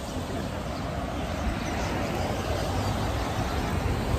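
Wind buffeting the phone microphone in a rough, uneven rumble, with road traffic passing.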